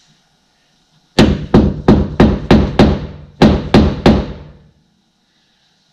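Hammer striking a center punch into metal, about nine sharp strikes in quick succession with a short pause partway through. Each strike rings briefly. This is marking the scribed X as a starting dimple for drilling a screw hole.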